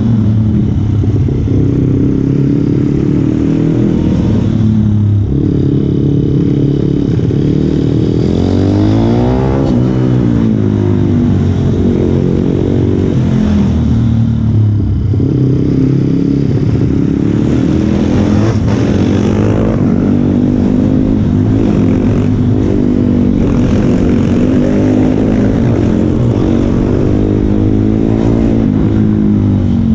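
Small motorcycle engine heard onboard, its pitch rising and falling over and over as it accelerates out of turns and backs off into them.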